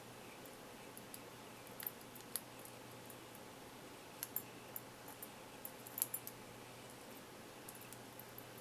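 Small, irregular metallic clicks and ticks of a Sparrows hook pick and tension wrench working the pins inside a Phillips padlock, with a cluster of sharper clicks about four and six seconds in.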